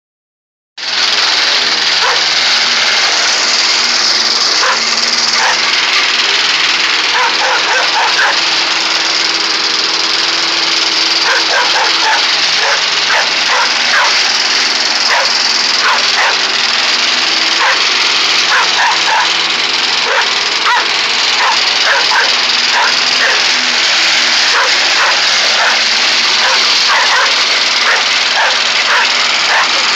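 Walk-behind gas lawn mower engine running steadily, with a chocolate Labrador retriever barking at it over and over in short, quick barks.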